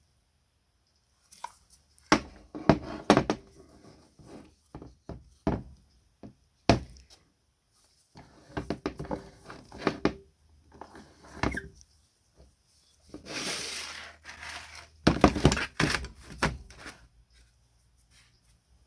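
Objects being handled on a workbench: a string of irregular knocks and clicks, with a short scraping rub partway through.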